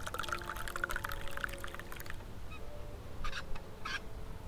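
Liquid poured from a thermos flask into its cup lid, a gurgling trickle that stops about two seconds in. Two short scuffs follow near the end.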